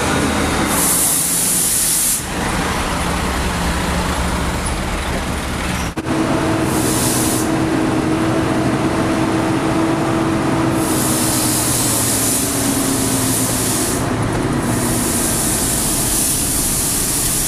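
Heavy truck's diesel engine running steadily, with several bursts of high hissing air lasting a second or more each. The engine note sinks slowly about two-thirds of the way through.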